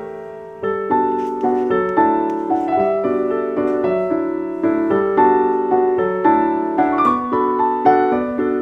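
Gentle background piano music, a melody of notes over sustained chords.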